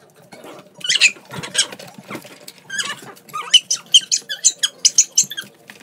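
A dog and a cat play-fighting: a fast run of short, high squeaks and yelps, two or three a second, thickest in the second half, with scuffling in between.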